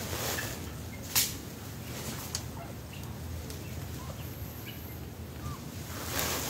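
Scattered short bird calls in the background, with one sharp knock about a second in.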